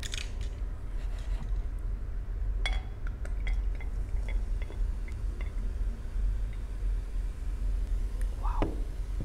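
A drink poured from a glass bottle into a ceramic mug: a clink of glass on the mug, then the pour with a run of small ticks and clicks, and a brief rising sound near the end.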